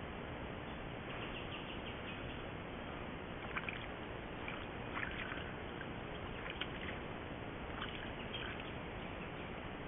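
Sambar stag drinking from a muddy wallow, muzzle in the water: about five short splashy sounds, starting about a third of the way in, over the steady hiss of a trail camera's microphone.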